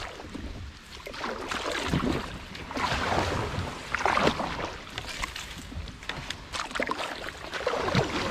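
Kayak paddle strokes swishing through shallow water about once a second, with reeds brushing past the boat.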